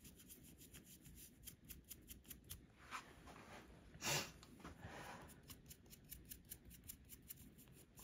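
Small bristle brush of an earbud cleaning pen scrubbing an AirPods Pro 2 earbud's speaker mesh in rapid short strokes: faint scratchy ticks several times a second. The brushing pauses in the middle with a brief louder rush of noise about four seconds in, then starts again.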